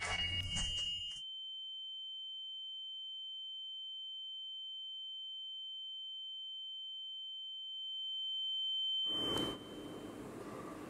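A short noisy crash, then a single steady high-pitched ringing tone, a film sound effect, held for about eight seconds. It swells near the end and cuts off abruptly into a steady hiss and rumble.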